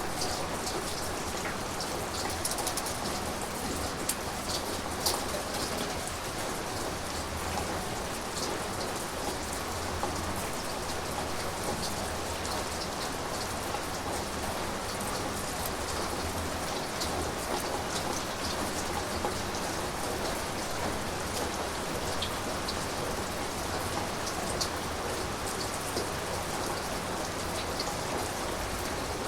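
Steady rain falling, with many individual drops ticking sharply on a surface.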